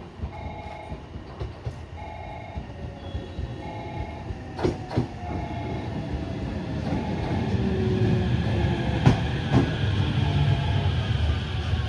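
Railway level-crossing warning bell ringing in a steady repeating pattern, about once a second. Under it a train grows louder from about halfway through. Sharp paired clicks of wheels over rail joints come twice.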